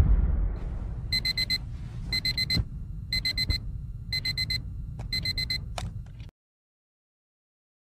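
Electronic alarm-clock beeping: five quick groups of about four short high beeps, one group a second, over a low rumble that fades away, all cutting off suddenly about six seconds in.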